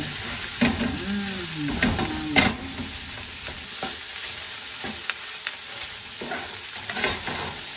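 Fried rice sizzling in a hot non-stick pan while a spatula stirs and turns it, mixing in the sauces just added, with repeated scrapes and knocks of the spatula against the pan; the sharpest knock comes about two and a half seconds in.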